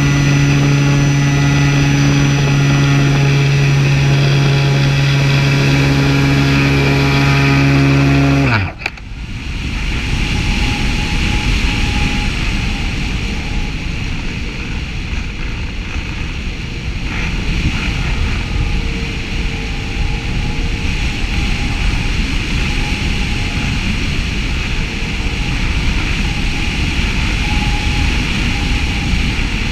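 A powered glider's propeller motor runs at a steady pitch, then cuts off about eight and a half seconds in, its tone falling away sharply. After that there is only the rush of air over the airframe and the microphone as the glider coasts.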